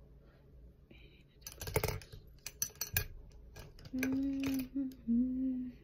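A quick run of small clicks and rattles as makeup items are handled. Then, from about four seconds in, a woman hums a few short held notes.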